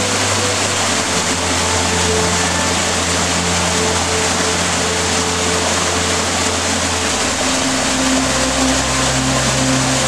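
Small waterfall rushing steadily over rock into a pool, with soft background music of held low notes that change about seven and a half seconds in.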